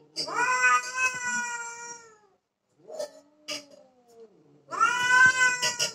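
Cat yowling at a rival cat, angry and territorial: a long drawn-out call of about two seconds, a quieter, lower moan falling in pitch, then a second loud call near the end.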